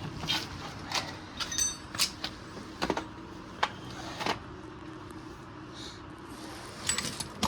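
Irregular metallic clicks and clinks of hand tools being worked on the wheel hub's bolts, one of them ringing briefly, over a steady low hum.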